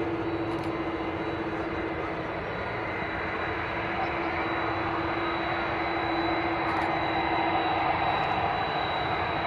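Jet airliner engines running: a steady whine over a broad rumble, growing slightly louder in the second half.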